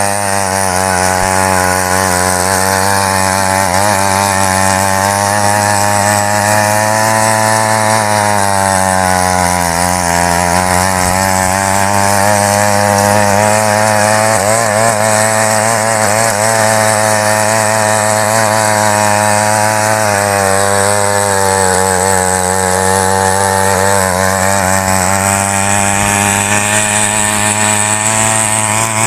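Mini weeder (small power tiller) with a small two-stroke petrol engine running steadily under load while its tines churn through soil. The engine pitch wavers slightly and dips briefly about ten seconds in and again around twenty seconds.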